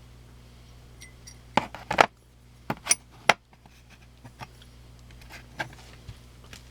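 Small metal clicks and clinks as titanium knife scales are handled and set down, several sharp ones close together in the middle and a few fainter ones later.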